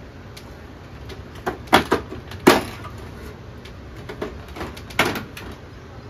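Plastic casing of a Samsung split air conditioner's wall-mounted indoor unit clicking and knocking as it is handled and unclipped: a quick run of sharp snaps, the loudest about two and a half seconds in, then a few more near the end.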